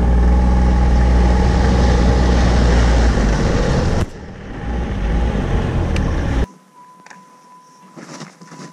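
Ski-Doo Skandic 900 ACE snowmobile running under way: engine and track noise with a steady low rumble, easing off briefly about four seconds in and then picking up again. The sled noise stops abruptly about six and a half seconds in, leaving a thin steady tone and faint crunching steps in snow.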